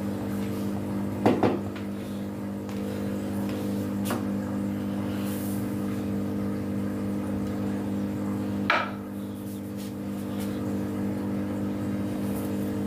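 A steady mechanical hum made of several held tones, with a few brief knocks or clatters, the sharpest about two-thirds of the way through.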